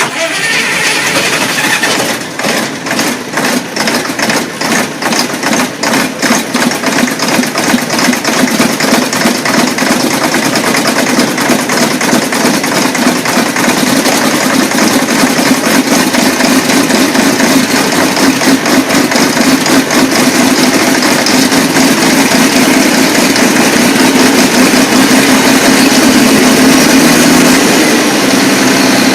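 A large engine cold-starting: uneven, knocking firing for the first several seconds, then settling into loud, steady running.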